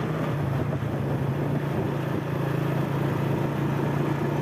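Engine of the vehicle carrying the camera, running steadily at a constant pitch while it travels, with road and wind noise over it.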